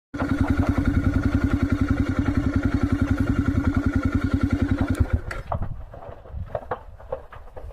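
Vehicle engine idling with a steady, even pulse, switched off about five seconds in; then the scattered crackles and pops of a fire burning.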